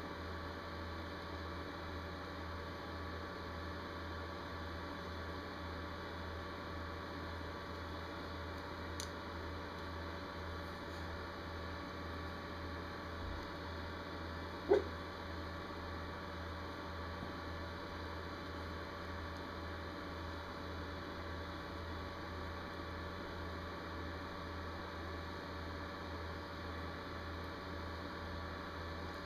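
Steady electrical hum with a faint hiss. A single short chirp sounds about halfway through.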